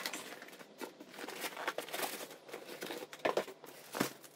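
Packing material crinkling as new parts are unwrapped, then two dull knocks near the end as a cardboard parts box is handled.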